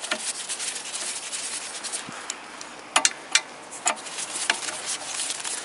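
A socket wrench working the steel bolts of a Toyota Corolla's clutch pressure plate: a few sharp metallic clicks and clinks about three to four and a half seconds in, one with a brief ring, over a faint hiss.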